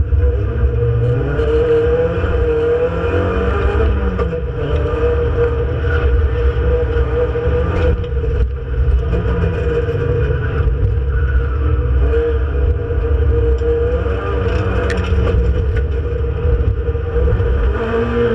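Renault Clio Sport 182's 2.0-litre four-cylinder engine heard from inside the cabin, driven hard: it revs up and drops back again and again as it goes through the gears.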